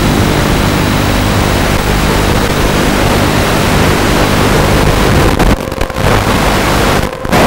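Loud steady static hiss from the analog FPV video link's audio channel as recorded by the goggles' DVR, with a faint low hum underneath. It dips out briefly twice near the end as the radio signal breaks up.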